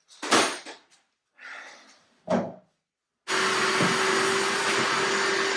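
A few short knocks and clunks, then about three seconds in a small electric motor driving a fan switches on abruptly and runs with a steady rush of air and a constant hum.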